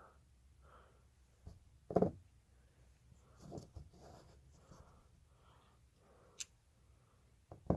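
Coins being handled: soft rubbing and sliding, with a short knock about two seconds in and a sharp click near the end.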